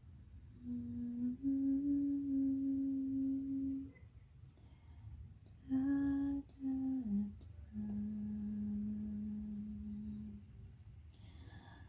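A person humming a slow tune in a few long held notes. One note slides down about seven seconds in, into a longer, lower held note.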